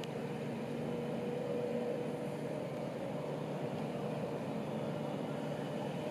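Engine of a Zephir LOK 20.300 road-rail shunter running steadily as it moves a railway coach, a constant low hum.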